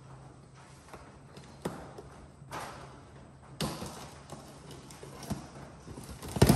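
Cardboard shipping box being handled and opened by hand: scattered taps and knocks on the cardboard, a couple of short scraping rustles, and a louder thud near the end.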